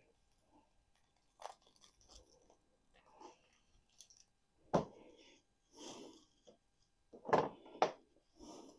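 Bonsai branch side cutters snipping through privet suckers: several sharp crunching snips, the loudest about five seconds in and two close together near the end, with the rustle of twigs being handled between them.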